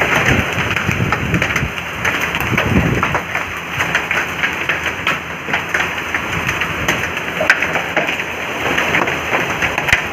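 Heavy rain mixed with hail pelting down: a steady downpour hiss with many sharp clicks and knocks of hailstones striking the wet paving.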